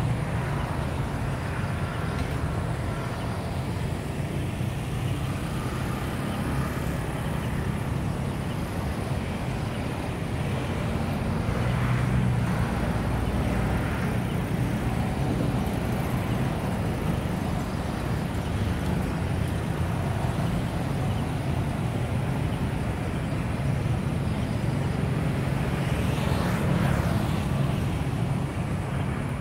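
Steady low rumble of distant city traffic. Louder swells about twelve seconds in and again near the end sound like vehicles passing closer.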